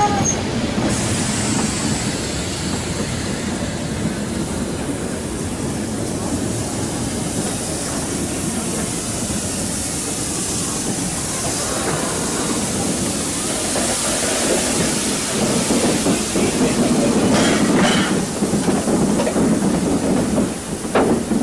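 Steam-hauled train of vintage passenger coaches and a class 52 steam locomotive rolling past close by: a steady rumble of wheels with clicks over the rail joints and a hiss of steam. It grows louder near the end as the locomotive's running gear goes by.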